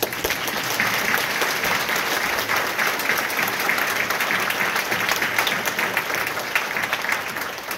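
A congregation applauding: many hands clapping together at once, starting suddenly and holding steady.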